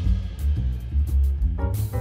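Instrumental background music with a steady low bass pulse.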